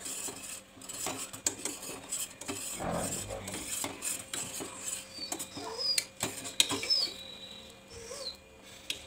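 Metal ladle stirring and scraping in a stainless steel pot of hot milk, with irregular clinks and knocks against the pot. The milk is kept stirring so it does not catch on the bottom while it boils down.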